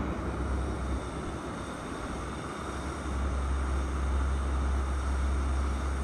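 Wind buffeting the microphone outdoors: a low, steady rumble with a hiss above it, easing between about one and three seconds in and then returning.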